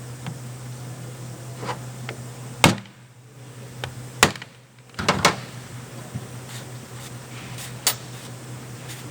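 A few separate sharp clicks and knocks as the fuel filter housing on a Mitsubishi L200's 4D56 diesel is worked open by hand, over a steady low hum.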